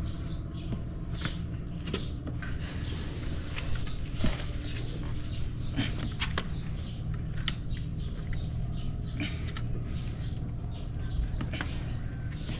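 Seat cover material being pushed and tucked into a car seat by hand: repeated short scratchy rustles and scrapes with a few light clicks, over a steady low hum.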